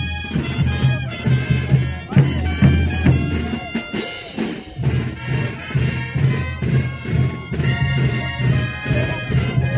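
Brass band playing dance music: several wind instruments in harmony over a steady, pulsing bass.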